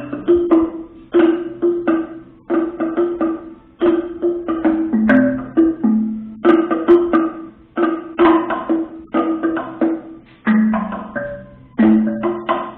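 Percussion music: quick runs of sharp strikes on pitched, wood-block-like percussion, played in short phrases with brief gaps between them.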